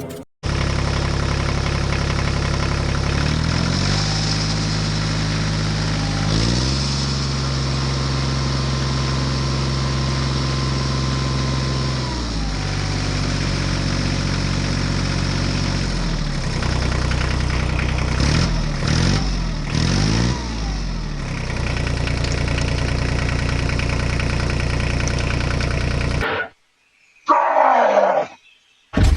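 Tractor engine running steadily, its pitch stepping and sliding up and down several times, then cutting off suddenly near the end. A brief falling sound follows after the cut.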